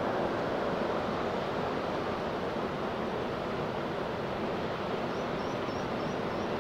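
Antonov An-124-100M's four Progress D-18T turbofans running on the landing roll, a steady distant jet rumble that eases slightly at first and then holds level. Near the end a small bird chirps repeatedly, about three quick chirps a second.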